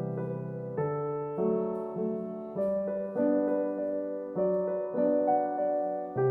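Background music: a slow, gentle piano melody, one note after another about every half second.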